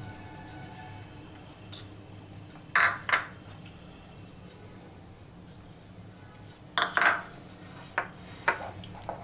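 Sharp clinks of small bowls and a spoon against a glass mixing bowl as marinade ingredients go in: two quick pairs, then a few single taps near the end.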